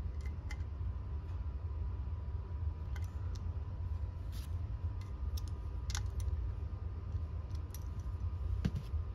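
About half a dozen light metallic clicks and clinks, scattered and irregular, as a Ford alternator and hand tools are handled on a workbench, over a steady low hum.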